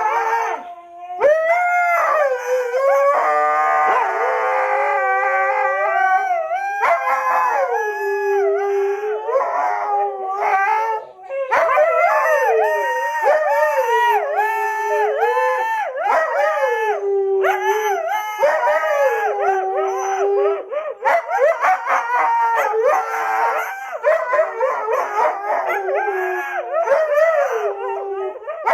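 Husky howling in long calls that rise and fall in pitch, one after another, with a brief break about eleven seconds in.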